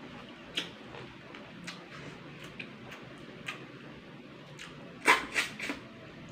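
Close-up eating sounds of a person eating rice and snails cooked in coconut milk by hand: scattered small lip smacks and wet mouth clicks, then three loud quick sucks about five seconds in as snail meat is sucked from the shells.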